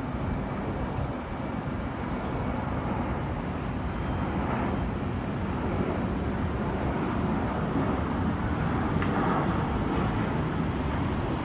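Steady jet rumble of large military transport aircraft passing overhead in formation, growing slightly louder as they come nearer.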